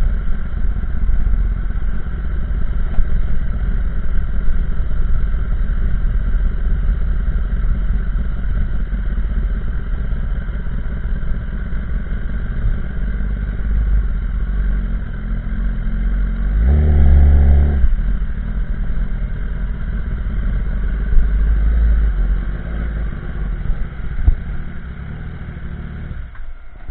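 Kawasaki ZX-10R inline-four motorcycle engine running through a de-cat carbon fibre exhaust while riding at cruising speed, loud but not extreme. About two-thirds of the way through, a clearer, stronger engine note stands out for a second. The sound drops away just before the end.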